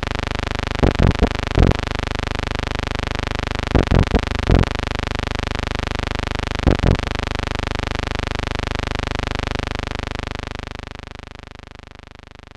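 A steady, loud buzzing hum that fades away from about ten seconds in, broken by brief loud blips in small clusters about one, four and seven seconds in.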